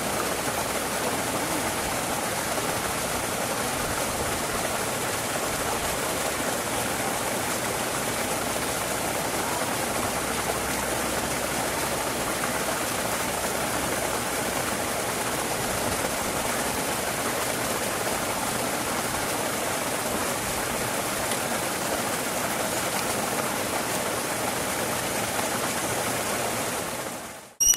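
Steady, unbroken rushing noise, even like running water, which cuts off sharply just before the end.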